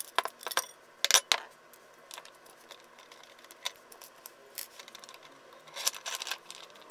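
Sharp clicks and metallic clinks of a fuzz pedal's circuit-board assembly, with its pots, jacks and footswitch, being worked out of its folded-steel enclosure and laid on a workbench. There are several louder clicks in the first second and a quick cluster near the end, with faint ticks between.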